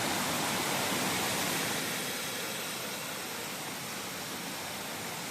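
Steady rush of flowing water, like a stream or small cascade, a little louder for the first two seconds.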